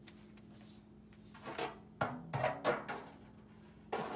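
Plastic-gloved hand squelching and rustling through dry-seasoned goat meat in a glass bowl, in a few short bursts about a second and a half, two, and four seconds in.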